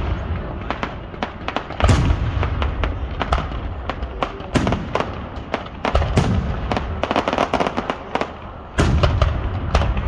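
Fireworks display: a rapid run of crackling reports and sharp pops, with heavy booms of aerial shells bursting about two seconds in, about six seconds in, and again near the end.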